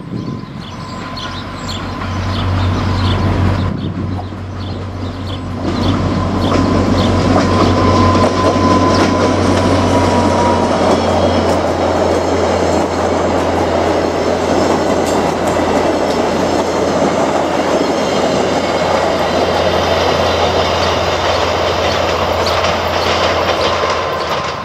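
VIA Rail passenger train led by an F40PH-2 diesel locomotive running past close by, a steady low engine hum under the noise of the coaches' wheels clicking and rumbling on the rails. It is fainter during the approach and jumps much louder about six seconds in as the train goes by.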